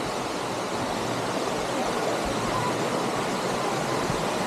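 Waterfall pouring into its pool, a steady, even rush of water.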